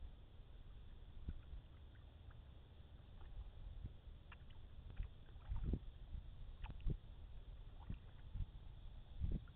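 Canoe being paddled: faint paddle-in-water sounds with scattered light knocks at irregular intervals, over a steady low rumble.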